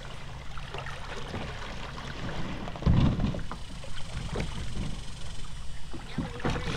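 Small lake waves lapping and slapping against a kayak's hull over a low rumble, with a heavier low thump about three seconds in.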